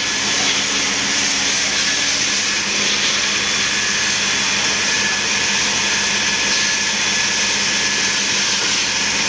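A steady, unbroken rushing noise with a low mechanical hum underneath, unchanging in level.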